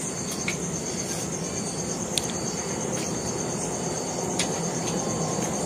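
A cricket trilling steadily in a fast, even pulse over a steady low rumble, with a few sharp clicks from people eating.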